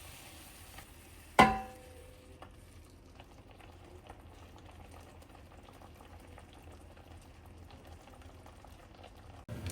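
A single sharp clang of a utensil striking kitchenware about a second in, ringing briefly. Under it is the faint, steady sound of food cooking on the stove, with small ticks now and then.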